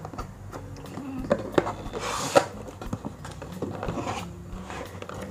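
A cardboard shipping box being opened by hand: its flaps and the packed cards inside tap, click and rub, with a longer scraping rustle about two seconds in.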